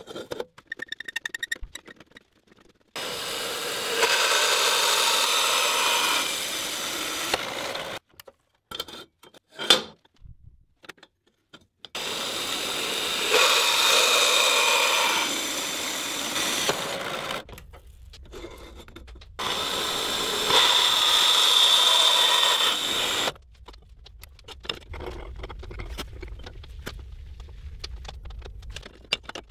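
Power tools working steel: three separate loud stretches of steady machine noise with a high whine, and scattered clicks and handling knocks in the quieter gaps between them.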